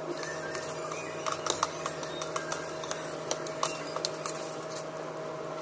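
Fork and spoon clicking and scraping against a plate while eating, a couple of irregular clicks a second, over a steady background hum.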